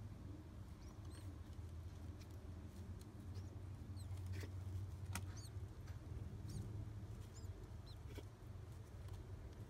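Newly hatched pigeon squab begging to be fed: a scatter of short, high, faint squeaks over a steady low hum.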